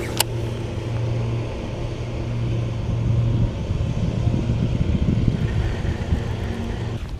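Boat motor running steadily with a low, even hum, over low rumbling water and wind noise. A sharp click comes just after the start.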